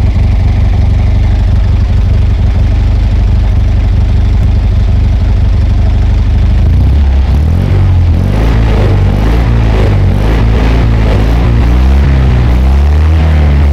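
Fiat 126p's two-cylinder air-cooled engine running through a Polski Fiat 125p exhaust, heard at the tailpipe. It idles steadily at first, then from about seven seconds in it is revved up and down several times.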